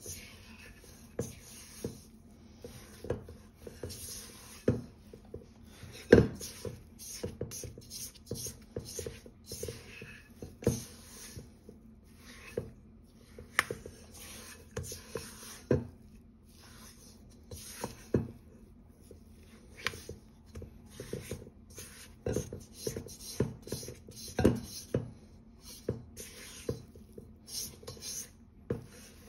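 Wooden spatula scraping and knocking against a stainless steel mixing bowl as stiff cookie dough is stirred and pressed together: irregular scrapes with sharp taps, two taps louder than the rest, about 6 and 24 seconds in.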